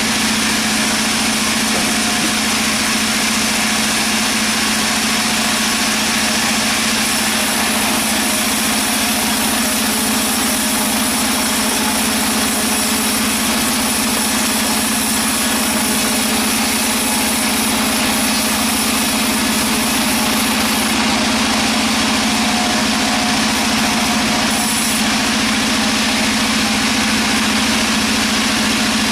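Sawmill machinery running steadily, a constant loud drone with a low hum, without a break.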